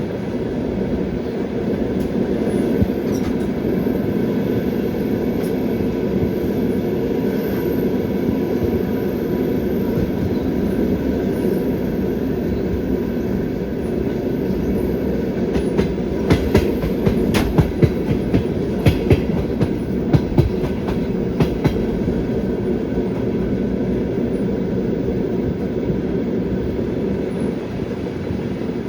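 Passenger train running on the line, heard from aboard: a steady rumble of wheels on rails. About halfway through comes a run of sharp clacks as the wheels pass over rail joints.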